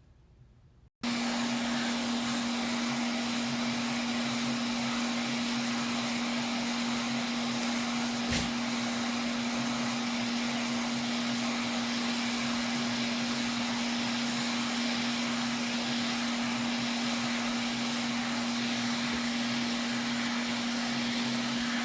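Hot air rework station blowing steadily, a fan-driven rush of air with a steady hum, switched on abruptly about a second in.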